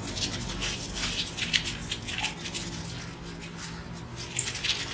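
Tissue paper rubbed quickly back and forth over a wet, freshly etched glass sheet, making a rapid series of scratchy wiping strokes.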